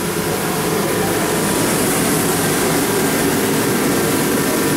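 Shop heating and drying blowers running steadily: a loud, even rush of air with a faint hum.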